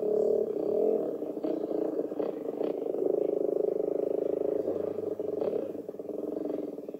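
450cc four-stroke motocross bike engine running at low revs under a slow ride, the revs rising and falling in the first second, then holding steady before easing off near the end.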